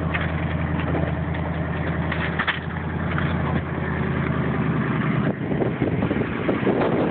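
2004 Ford F-150 engine idling steadily at about 750 rpm, heard from inside the cab. About two-thirds of the way through, the steady hum drops away and irregular rustling and knocking take over.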